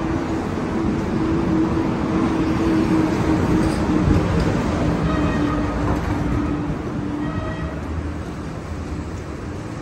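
A subway train running, with a steady hum that stops about three quarters of the way through.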